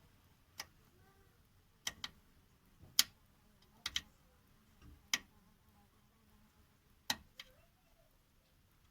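Sharp metallic clicks, about nine, irregularly spaced, as a thread tap is turned by hand into a hole in a steel engine skid plate.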